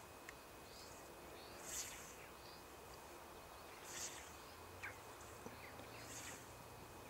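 Scythe blade swishing through long grass in three even strokes about two seconds apart, faint.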